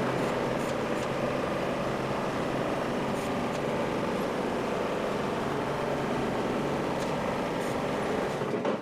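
Bobcat skid steer loader's engine running steadily.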